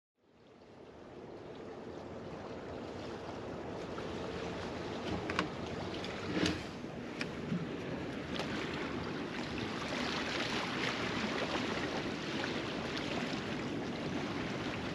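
Small lake waves lapping on a rocky shore, a steady wash of water fading in over the first couple of seconds. A few short clicks and knocks partway through, from a camper door being pushed open.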